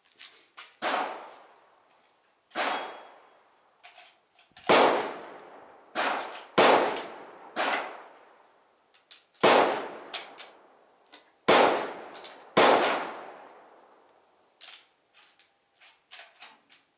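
Rifle shots from a Swiss K11 straight-pull rifle in 7.5×55 Swiss, about ten sharp bangs, each trailing off in a long echo, several coming close together. Small clicks and clanks between the shots and near the end.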